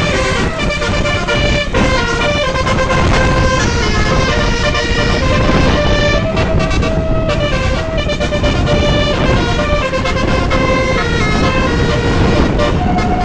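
Indonesian bus 'telolet' horn: a multi-tone musical air horn playing a tune of short held notes stepping up and down in pitch, over loud engine and road noise.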